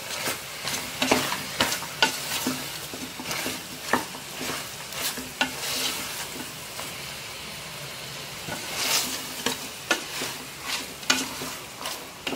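Mutton pieces sizzling as they fry in oil in a pressure cooker, stirred with a spoon that scrapes and knocks irregularly against the metal pot.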